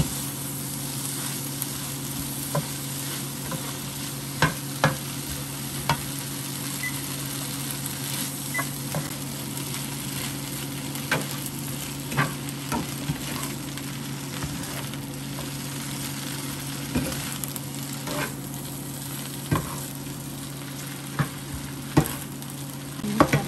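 Food sizzling in a frying pan as it is stir-fried, with sharp knocks of the utensil against the pan at irregular intervals, about a dozen in all.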